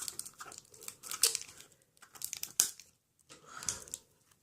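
Plastic wrapper of a Mashems blind-pack crinkling and tearing in irregular bursts as fingers pick and pull at its tear strip.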